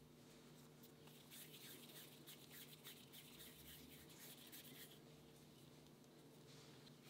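Faint rubbing and scraping of hands rolling and smoothing a ball of glutinous rice dough between the palms, in many quick strokes, over a low steady hum.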